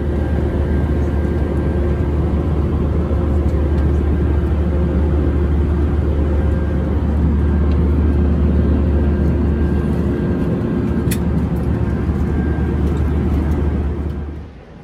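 Jet airliner cabin noise in flight: a loud, steady engine drone with a strong low hum and a few faint steady whining tones above it. It cuts off shortly before the end.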